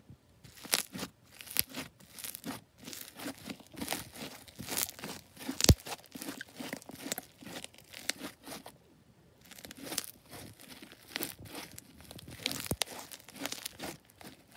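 Blue foam slime squeezed and stretched by hand, crackling and popping irregularly, with one loud pop about halfway through and a brief quieter lull later on.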